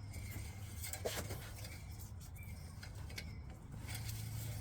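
Faint handling sounds under the hood, scattered light rubs and clicks as the engine oil dipstick is checked, over a low steady hum.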